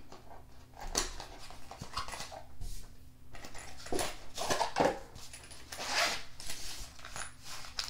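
Cardboard knife box being slid open by hand and a nylon zippered pouch pulled out of it: a string of short scrapes, rustles and light knocks.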